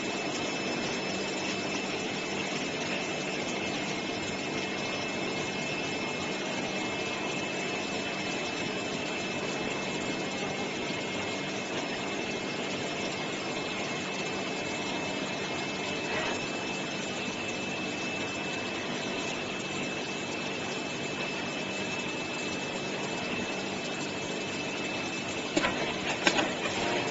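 AOKE DCZ70 flatbed cutting plotter running while it V-groove cuts grey board: a steady mechanical hum with a thin high whine, and a few sharp clicks near the end.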